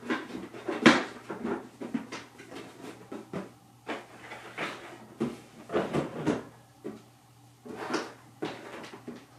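Irregular knocks and clatter as a toy and its packaging are handled and set down, the sharpest knock about a second in.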